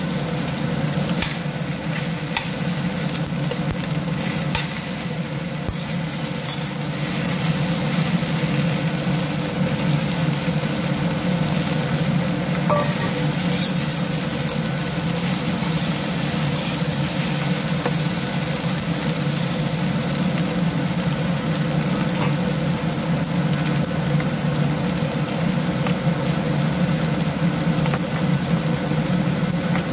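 Fried rice sizzling in a wok as it is stir-fried, with a metal spatula scraping and clicking against the pan now and then, over a steady low hum.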